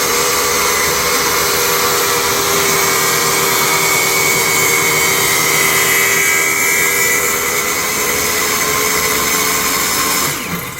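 Ryobi table saw motor and blade running at full speed with a steady whine. Near the end the saw is switched off and its pitch falls as it spins down.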